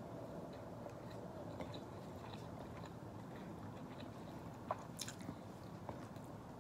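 Faint chewing of food eaten by hand, with small mouth clicks over a steady low room hum, and a sharper click about five seconds in.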